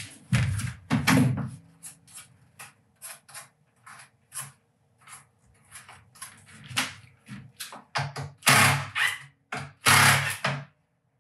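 A lightweight shelf being fitted into a wooden rolling cart: a run of light taps and knocks, then two loud scraping thumps near the end as it is pushed into place.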